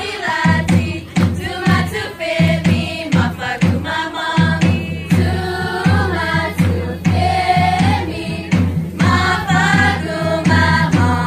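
Island dance music: voices singing a song over a steady, quick low drum-and-bass beat.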